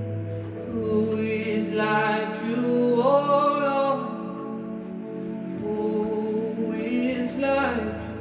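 Music with singing: long held notes in several parts, the pitch shifting about every second or two.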